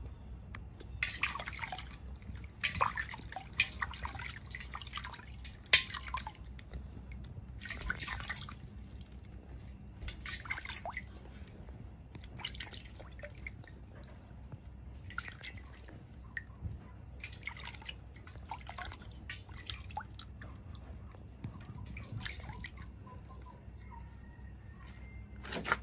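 Small splashes and drips of water in a steel basin as a baby monkey is dipped and washed by hand, coming every second or two. A single sharp tap sounds about six seconds in.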